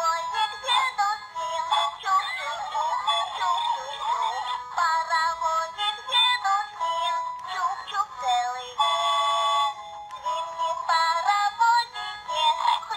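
Peppa Pig interactive plush toy playing a cheerful song through its small built-in speaker: a recorded girl's voice singing over backing music. The sound is thin, with no bass.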